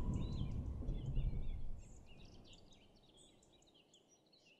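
Logo-card sound effect fading out: a low rumble with bird chirps over it, dropping away sharply about two seconds in, the chirps carrying on faintly before dying away.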